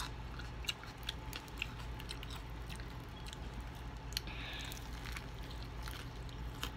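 Close-up mouth sounds of someone biting and chewing crispy fried chicken, with scattered small crunches and crackles.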